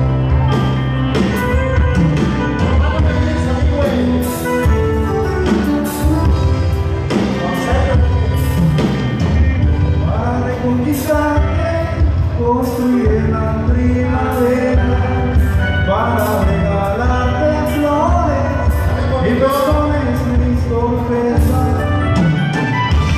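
A live band playing through the PA: electric guitars, bass, drums and keyboard, with a male singer coming in about ten seconds in.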